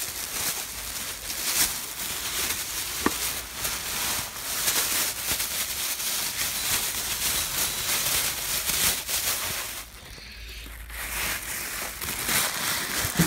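Plastic packaging wrap crinkling and rustling as it is pulled and handled, with a brief lull about ten seconds in.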